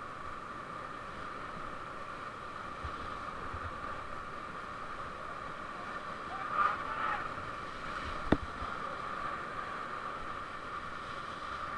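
Steady rush of river water heard from a raft, with a brief louder sound about six and a half seconds in and a single sharp click just after eight seconds.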